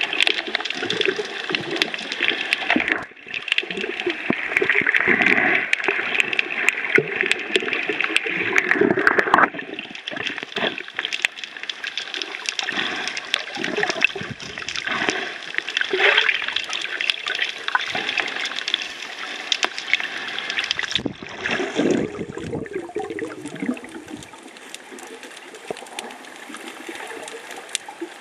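Water gurgling, sloshing and crackling around a camera held underwater while snorkelling. The sound is loudest for the first ten or so seconds, then eases and turns quieter near the end.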